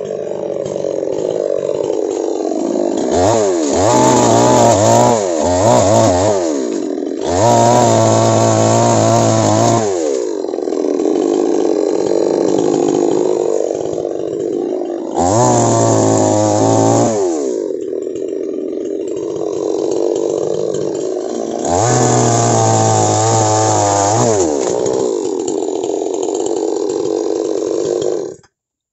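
Two-stroke chainsaw idling and repeatedly revving up to full throttle, five times, as it cuts through oil palm fronds, each rev falling back to idle. The sound cuts off suddenly near the end.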